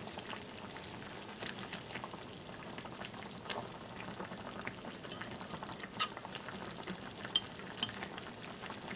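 Caramelized salmon braise simmering in an open clay pot, its sauce bubbling and sizzling steadily. A few light clicks of the spoon and chopsticks against the pot, the sharpest two close together near the end.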